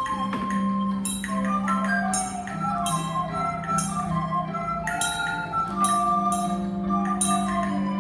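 Instrumental music: a melody over held bass notes, with regular percussion strikes.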